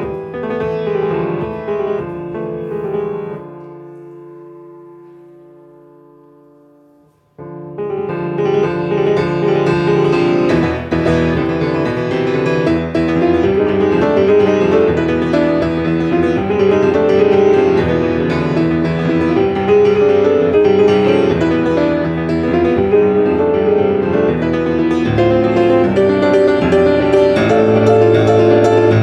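Solo piano playing. A held chord rings out and fades for about four seconds, then a loud, busy passage of quick notes starts again.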